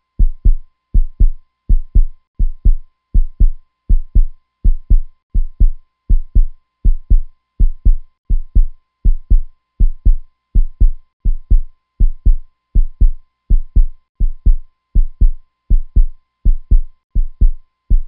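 Heartbeat sound effect: deep, evenly paced lub-dub double thumps, about 85 beats a minute.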